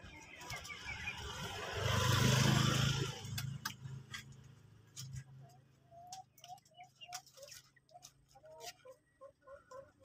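A motorcycle passes on the road, its engine swelling to loudest about two and a half seconds in and fading by three. From about halfway on, a bird calls in short rising notes, about three a second, among light clicks and taps.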